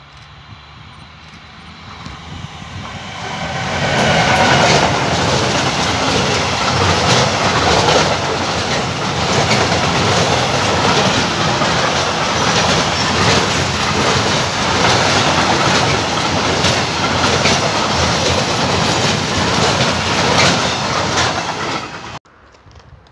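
Freight train passing close by: it grows louder over the first few seconds as it approaches, then a long string of wagons rolls past with steady wheel clatter over the rails. The sound cuts off abruptly near the end.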